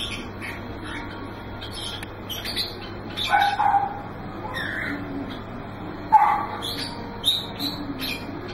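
Small caged birds chirping in quick, high, short notes, with a dog giving two louder yips, about a third of the way in and again past the middle.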